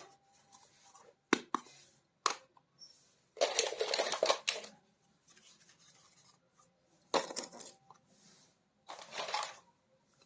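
Small hard toy pieces clicking and clattering against each other: several sharp clicks and two short rattling stretches, one about three and a half seconds in and one near the end.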